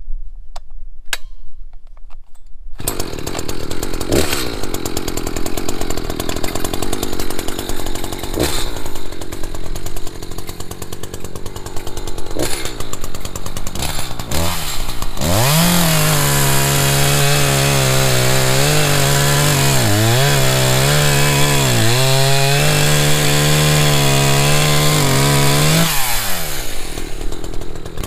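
Echo CS 590 59.8 cc two-stroke chainsaw: after a few faint clicks it comes in about three seconds in and runs at lower speed with occasional revs. About halfway through it goes to full throttle cutting through a log, its pitch sagging each time the chain bites. It drops back near the end, then revs up again.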